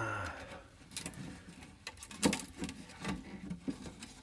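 Scattered clicks, light knocks and scrapes as a large capacitor is worked loose from the tabs holding it down on a circuit board.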